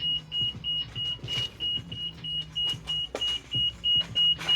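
An electronic beeper sounding a single high-pitched tone in rapid, evenly spaced beeps, about three a second, growing slightly louder toward the end.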